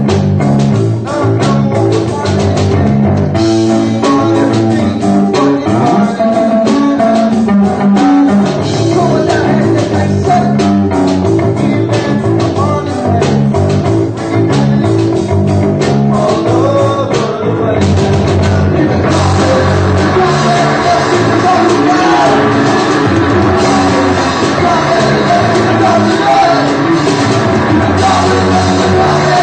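A live rock band playing, with electric and acoustic guitars, a drum kit and a singer. The sound gets fuller and brighter about two-thirds of the way in.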